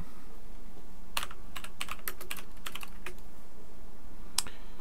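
Typing on a computer keyboard: a quick run of keystrokes about a second in as a short terminal command is entered, then one more click near the end, over a steady low hum.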